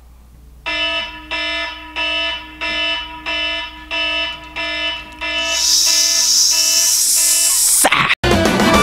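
A wake-up alarm beeping over and over, about one and a half beeps a second, each beep one steady pitched tone. About five and a half seconds in, a loud hiss joins the beeping. Near the end the sound cuts out briefly and music starts.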